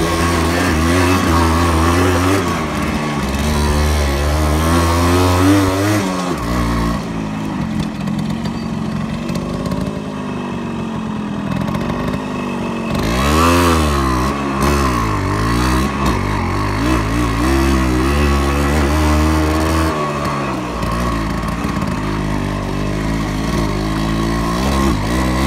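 Yamaha RX-100's two-stroke single-cylinder engine running as the motorcycle is ridden, its revs rising and falling with the throttle. There is a quick rev up and back down about 13 seconds in.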